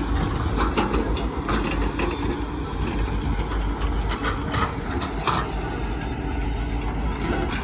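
A steady low mechanical rumble with scattered short clanks and knocks.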